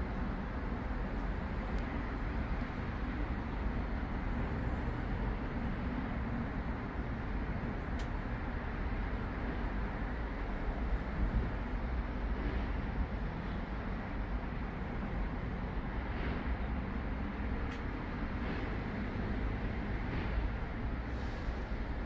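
Steady noise of cars passing on a road, loud over everything, with a sleeping stray cat's soft breathing faintly beneath it.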